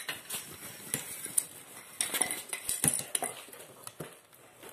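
Irregular light metallic clicks and clinks, a dozen or so sharp knocks from bicycle parts being handled during tyre fitting.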